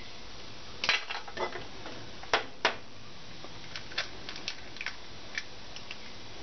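Scattered sharp clicks and light knocks as eggs are cracked and opened over earthenware cazuelas and the clay dishes are handled on a metal stovetop. Two of the knocks, a little past halfway, are louder.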